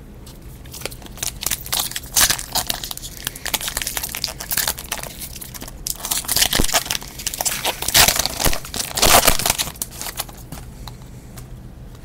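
Foil wrapper of a trading-card pack being torn open and crinkled by hand, in irregular bursts of crackling that are loudest about eight to nine seconds in.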